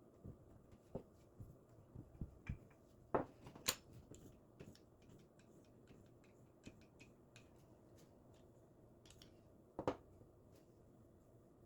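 Light, scattered clicks and taps of things being handled, with a few sharper knocks about three to four seconds in and another near ten seconds.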